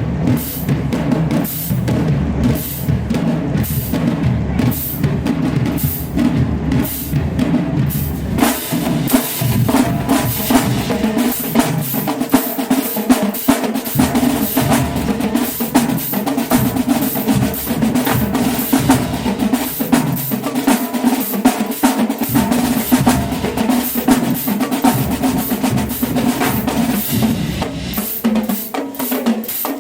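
Marching band drumline playing a fast cadence: rapid snare strokes over bass drums, with the bass drums dropping out for a few stretches.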